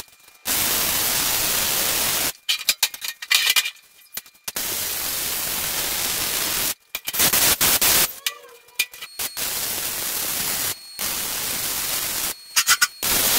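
MIG welding arc on steel plate: a steady hiss in runs of about two seconds, broken by short crackling tacks and brief stops.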